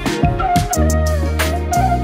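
Background music: drum hits, then about three-quarters of a second in a held bass note comes in under a sliding, bending melody.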